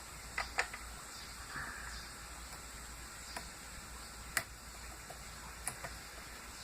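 Faint, scattered metallic clicks of lock picks working in the keyway of an Abus 55/40 padlock held in a vise, a few sharp ticks spread over several seconds as the pins are set.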